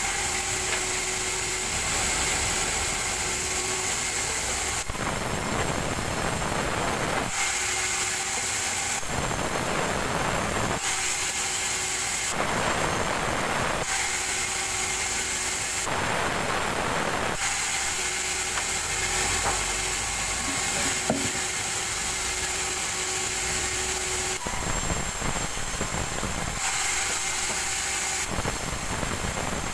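Vertical band saw at a sawmill running continuously while slabs of wet petai wood are fed through it. The sound changes every two to four seconds, between the steady whine of the running blade and a denser rasp as the wood goes through.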